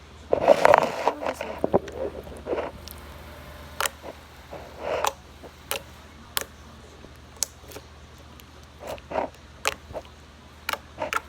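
Homemade slime being squished and poked by hand, giving irregular sharp little pops and clicks with short squelches, most busily in the first second or so.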